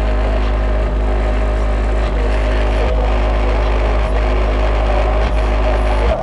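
A 15-inch American Bass HD car-audio subwoofer playing a loud, steady, very deep bass note, heard from outside the car through the trunk and body panels.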